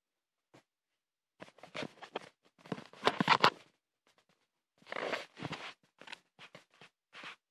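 Rustling and scraping handling noise of a phone camera being moved around and rubbed against fabric, in irregular bursts, loudest a little after three seconds in.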